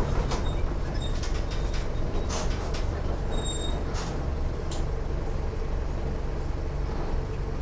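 Diesel engine of a Mercedes-Benz OF 1418 bus running steadily under way, with short clicks and rattles from the Marcopolo Torino body and two brief high squeaks.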